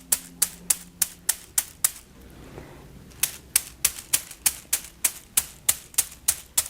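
Small massage rods tapping in a steady rhythm of sharp clicks, about three a second, used for their sound during a massage. The tapping pauses for about two seconds shortly after the start, then resumes.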